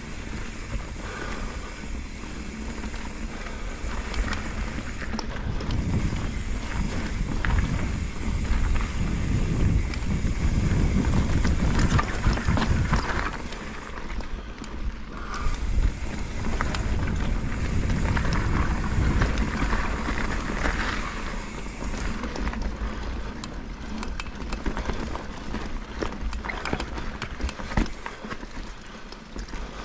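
Mountain bike rolling down a dirt singletrack: a steady rumble from the tyres and the ground, with many quick clicks and rattles from the bike over rough ground, louder through the middle and easing near the end.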